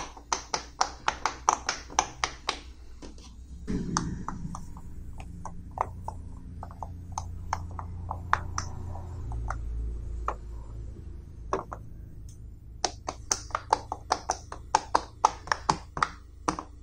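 Silicone pop-it fidget toy bubbles being pushed in one after another, a quick run of sharp popping clicks at about four a second. About four seconds in, the pops thin out to a few fainter ones over a low rumble, then a fast run of pops starts again near the end.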